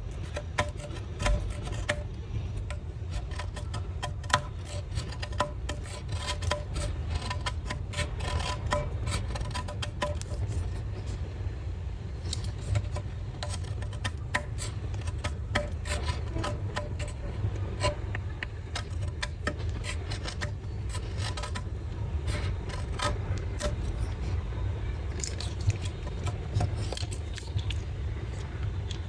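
A small folding knife being handled: repeated light clicks and metallic rubbing, like the blade and keyring clip being worked, over a steady low rumble.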